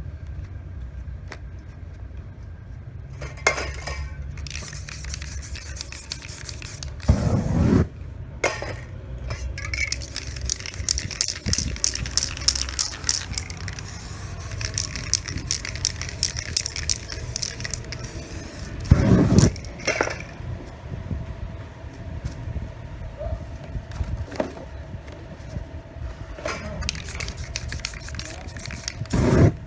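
Aerosol spray-paint cans hissing in repeated bursts, one lasting several seconds, between clinks of cans against one another and a few loud thumps, over a steady low rumble.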